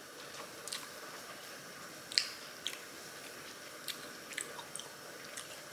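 Chewing a mouthful of sticky sweet-potato glass noodles (japchae), with scattered wet mouth smacks and clicks, the loudest about two seconds in.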